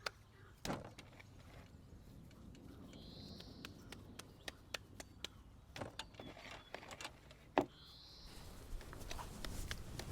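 Wood fire crackling with irregular sharp pops, with a few heavier knocks. A bird gives a short high call twice, about three seconds and eight seconds in.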